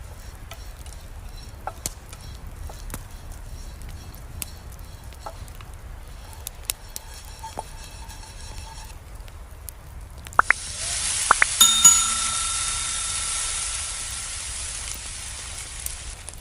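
A pan over a campfire, quiet at first with scattered small crackles, then a few sharp metal clinks with a ringing tone about ten seconds in. A loud sizzle follows as food goes into the hot oil, easing off over the last few seconds.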